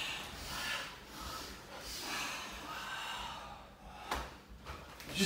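Karate students drilling strikes in unison: sharp exhalations and the rustle of gi fabric, with a short sharp knock about four seconds in.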